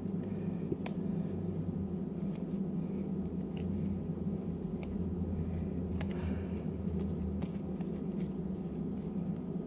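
Fluffy slime of glue and shaving foam being mixed by hand, with soft squishing and scattered light clicks, over a steady low hum.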